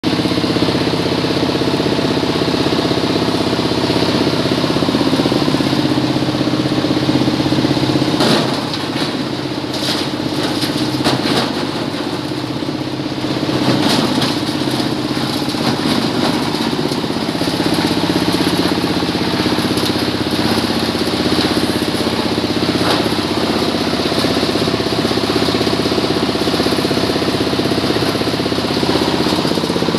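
Engine-driven coconut-husk grinder (cocopeat shredder) running steadily. A cluster of sharp knocks and crackles comes between about 8 and 14 seconds in, while the engine note dips briefly.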